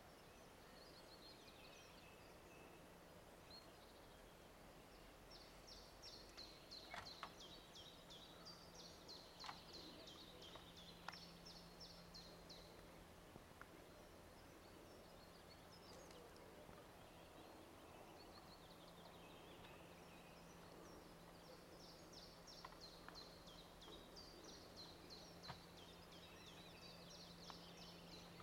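Quiet spring forest ambience: faint songbirds trilling high and rapidly in two long spells, a few soft distant knocks, and a low faint steady hum.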